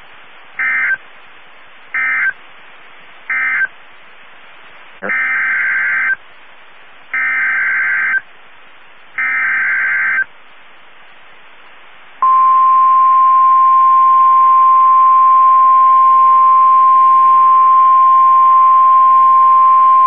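NOAA Weather Radio Emergency Alert System tones. First come three short warbling data bursts, the end-of-message code closing the previous warning. Then come three longer warbling SAME header bursts, about two seconds apart. About twelve seconds in, the long steady single-pitch warning alarm tone starts, announcing a tornado warning. Faint radio hiss fills the gaps between bursts.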